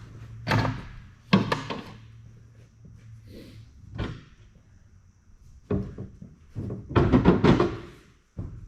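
Several sharp metal clunks and knocks, then a longer rattling clatter near the end, from tools working a stuck diesel injector out of the cylinder head of a New Holland 7.5-litre engine.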